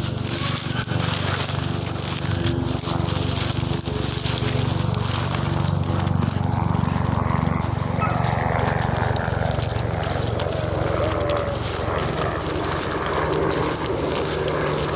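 Crackling and rustling, like dry brush and twigs being pushed through and handled close to the microphone, over a steady low hum.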